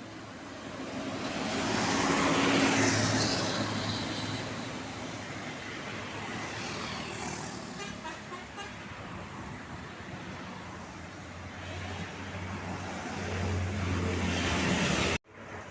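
Tour buses passing close by on a road with traffic: one loud pass-by swells and fades about two to three seconds in, and another builds near the end before the sound cuts off abruptly.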